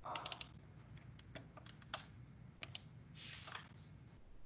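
Faint typing on a computer keyboard: irregular key clicks, a quick cluster at the start and a few more scattered through, with a brief soft rustle a little after three seconds in.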